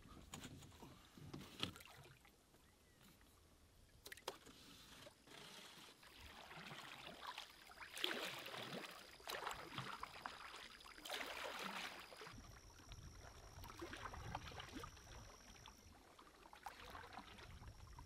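Faint canoe paddle strokes swishing through the water, one every second and a half to two seconds.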